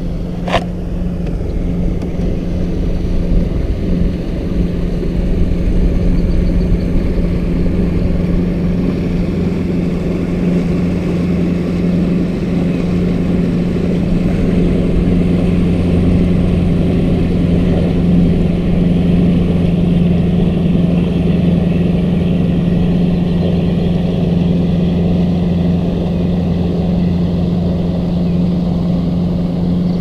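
Boat motor running steadily with a constant low hum. A single sharp click about half a second in.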